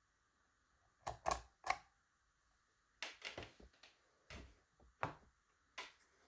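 Sharp metallic clicks and clacks from handling a DOM ix Twinstar lock and its key, coming in irregular clusters with short quiet gaps between.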